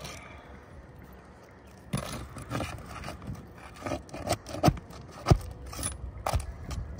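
Flat pry bar scraping and sliding under asphalt three-tab shingles to break their seals and release them, with several sharp knocks of the bar. The scraping starts about two seconds in.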